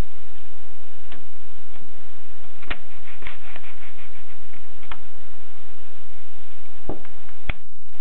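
Scattered sharp clicks and small ticks from a Tippa portable typewriter's platen and paper mechanism as the paper is adjusted, including a quick little run of clicks about three seconds in, over a steady loud hiss.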